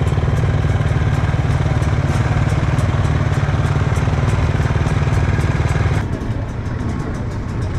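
Dirt bike engine running steadily close by; about six seconds in it cuts abruptly to quieter engine noise.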